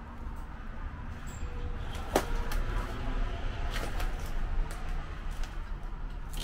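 Footsteps and small knocks from someone moving through a debris-strewn room: a few sharp clicks, the loudest about two seconds in, over a low steady rumble.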